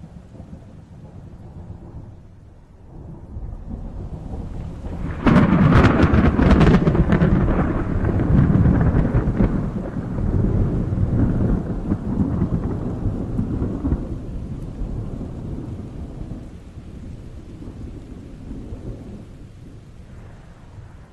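Thunder in a rainstorm: a low rumble builds, then breaks into a sharp crackling clap about five seconds in. A long rolling rumble follows and slowly dies away, with rain falling throughout.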